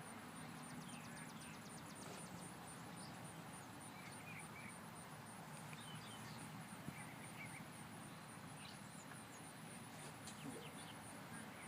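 Quiet rural ambience: scattered faint bird chirps over a low steady hum, with a faint high ticking that repeats about three times a second.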